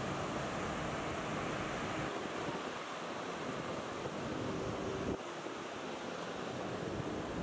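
Ocean surf: a steady wash of breaking waves, with some wind on the microphone. The noise drops suddenly about five seconds in.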